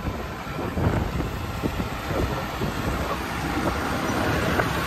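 Wind rushing over the microphone of a moving motorcycle, over a steady low engine rumble.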